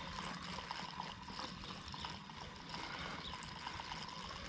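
Spinning reel being wound in after a bite on a ledger rod, a quick run of light ticking clicks over a steady background hiss.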